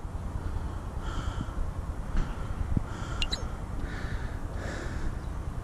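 Quiet outdoor lakeside ambience: a steady low rumble of wind on the microphone, with a brief high chirp about three seconds in.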